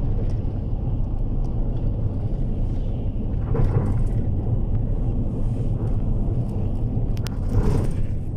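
Steady low rumble of road and engine noise from a moving vehicle, heard from inside it, swelling briefly twice, about halfway through and near the end.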